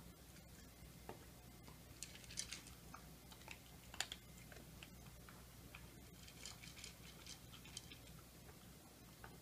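Shih Tzu eating dry kibble from a bowl: faint crunching and clicking of the kibble, in small clusters about two seconds in, once more sharply near four seconds, and again in the later part, over a low steady hum.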